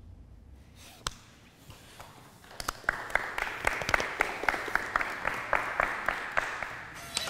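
A small group applauding, with the clapping starting about two and a half seconds in and going on steadily. There is a single sharp knock about a second in.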